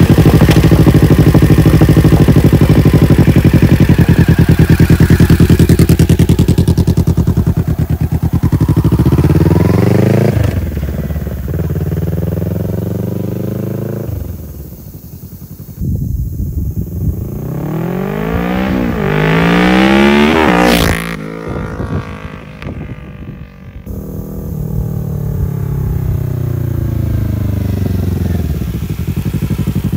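2019 Kawasaki Ninja 650's parallel-twin engine through a Hindle Evo megaphone full exhaust with its baffle in. It runs loud right beside the microphone, then revs up and pulls away, the pitch climbing and dropping through the gears. It rises again to a pass at speed with a sudden drop in pitch about twenty seconds in, and builds again near the end.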